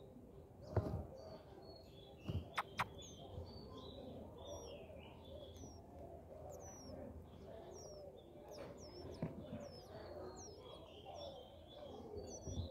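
Indian robin nestlings begging with thin, high chirps repeated about every half second as the adult arrives at the nest to feed them. A few sharp clicks come in the first three seconds.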